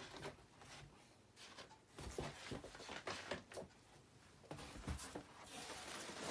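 Faint rustling and light knocks of packaged goods and cardboard being handled inside a cardboard box, a little louder near the end.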